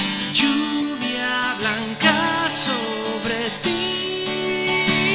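Strummed acoustic guitar with a man's wordless singing over it: a wavering vocal line about two seconds in, then a long held note near the end.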